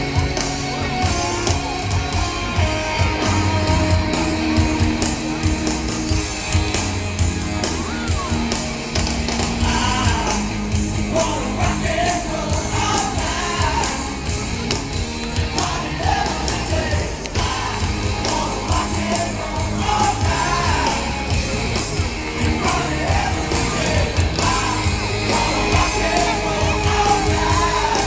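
Rock music with singing, played loud over an arena sound system, with a heavy bass line. The sung melody comes through most clearly from about ten seconds in.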